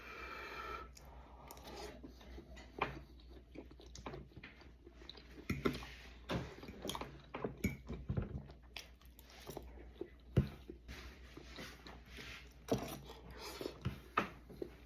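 Close-up chewing of biscuits and gravy: irregular mouth smacks and small clicks as a person eats.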